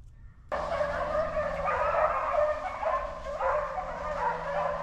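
A pack of hunting hounds baying and yelping together, many voices overlapping, starting suddenly about half a second in.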